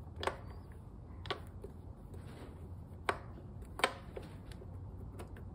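A few sharp metallic clicks and clinks, about four, the loudest a little before four seconds in, as the gear-laden number 5 shaft of a Gravely 8-speed riding tractor transmission is worked up out of its needle bearing against the neighbouring gears.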